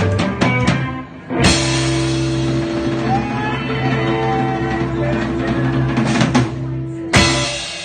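Live rock band with drums and guitar playing a song's ending. A few drum hits come first, then a strong hit opens a long held chord, and a final hit lands about seven seconds in.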